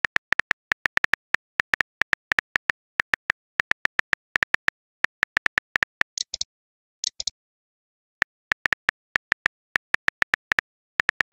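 Simulated phone-keyboard typing sounds from a texting-story app: a short, clicky beep for each keystroke, several a second in uneven runs. Two brief, higher hissy sounds come about six and seven seconds in, followed by a pause of about a second.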